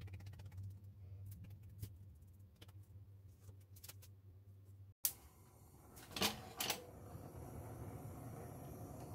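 Kitchen handling sounds: scattered light clicks and taps over a low hum, then two sharp clinks about six seconds in, followed by a steady low noise.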